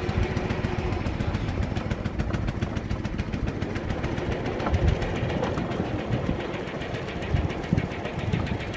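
Small petrol engine of a homemade rail go-kart idling steadily, with an even, rapid pulsing beat.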